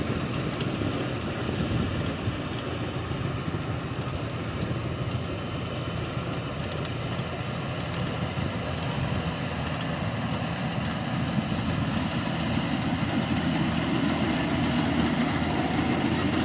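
Yanmar rice combine harvester running steadily as it cuts standing rice, getting louder over the last few seconds as it comes close.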